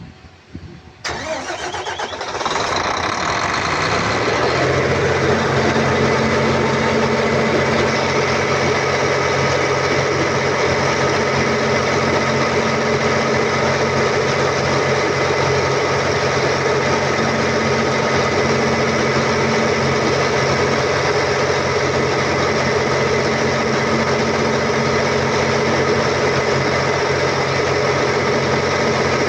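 Volvo Penta TAD1341GE six-cylinder turbo diesel, freshly top-overhauled, starting: the starter cranks about a second in, the engine catches and picks up speed over the next few seconds, then runs steadily.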